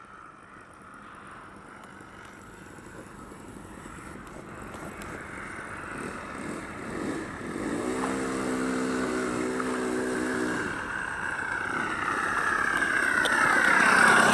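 Engine and propeller of a large radio-controlled Zero scale model in flight, growing steadily louder as it approaches. It drops in pitch as the plane passes low and close near the end. A lower steady hum joins for about three seconds in the middle.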